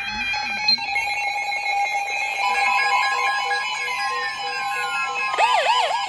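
Several NOAA weather radio receivers sounding their alert alarms together for a severe thunderstorm warning: overlapping steady tones and pulsed beeps, with a higher steady tone joining about two and a half seconds in. Near the end a fast warbling, siren-like alert tone starts.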